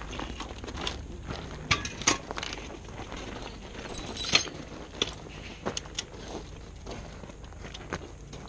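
Scattered metallic clicks and clinks of rescue-strut gear being set against an overturned vehicle, with footsteps on gravel. The sharpest clicks fall about two seconds in and again past four seconds.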